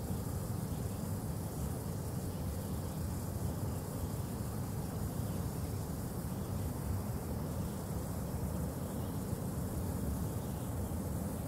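Steady low outdoor rumble with a faint hiss above it, unbroken and with no distinct events.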